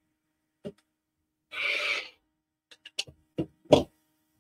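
A rotary cutter slices once through the layered cotton quilting fabric on a cutting mat, a short rasp. Then come several clicks and knocks as the acrylic ruler and the cutter are set down on the mat; the last knock is the loudest.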